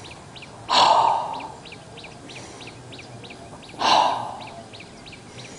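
A man breathing out hard through the mouth twice, about three seconds apart, as part of a paced yogic breathing exercise (in through the nose, out through the mouth). A faint, rapid, regular chirping runs under it.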